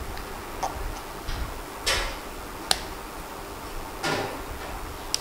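Needle-nose pliers gripping and snapping the threaded sides off a brass bicycle nozzle: a string of separate sharp clicks and snaps, the sharpest about two and a half seconds in.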